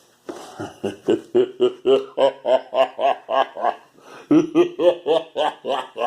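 A man laughing in a long run of rhythmic "ha-ha-ha" pulses, about four a second, breaking off briefly before a second run about four seconds in.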